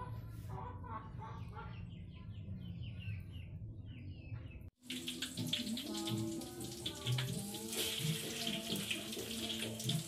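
After a cut about halfway, hot cooking oil sizzling and crackling in a wok as egg-battered mushrooms fry, with music playing a simple tune under it. Before the cut there is a steady low hum with short chirping sounds.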